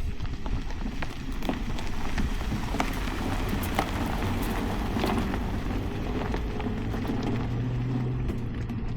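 Off-road vehicle driving slowly on a rocky dirt trail: tyres crunching over gravel and stones with many small clicks and crackles, over the engine's low steady hum.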